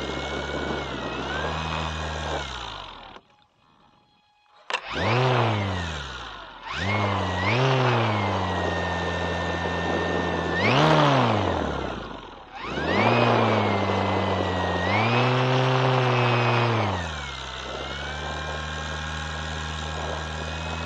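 Electric motor and propeller of a large RC model Cessna 150 floatplane, heard close up from on board, throttled up and down as it runs on the water. Its pitch sweeps up and down with each burst of throttle, and about three seconds in the motor cuts out for about a second and a half before surging again.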